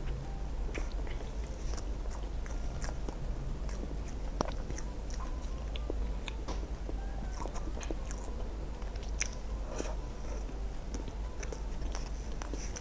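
Close-miked eating sounds: a person biting and chewing food, with many small scattered mouth clicks over a low steady hum.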